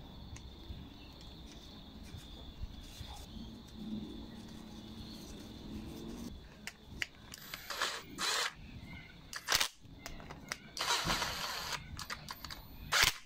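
Hands handling the plastic parts of a small-engine carburetor during reassembly, quiet at first, then about four short scraping, rasping noises in the second half, the loudest near the end, as parts are fitted and a nut driver turns a screw.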